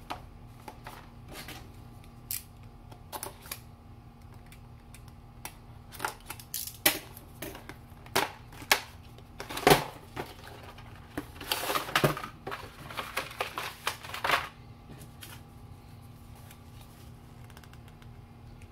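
Cardboard box and plastic packaging being opened and handled: scattered clicks, taps and rustles, busiest from about six seconds in until about fourteen seconds, then dying away.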